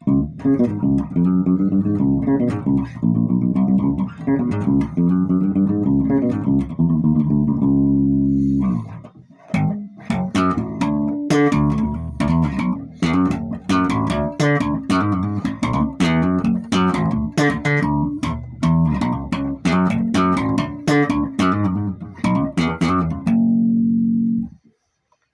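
Electric bass guitar with humbucker pickups played through a Boss GEB-7 bass equalizer with the pickup switch engaged, giving a fuller sound. A bass line plays, breaks off briefly about nine seconds in, then resumes as a busier line with sharp, percussive plucked notes until it stops just before the end.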